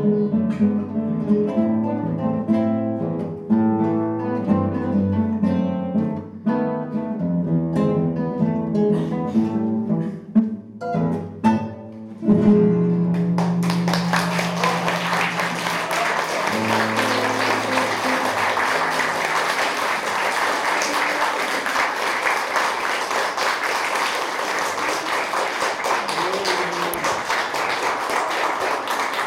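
Two classical guitars playing a duet, finishing on a held chord about twelve seconds in. Audience applause follows and carries on steadily.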